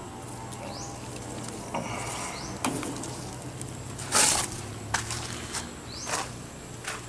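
Footsteps and rustling in brush while walking over garden ground, with one louder rustle about four seconds in. Under it runs a steady low hum, and short rising chirps sound now and then.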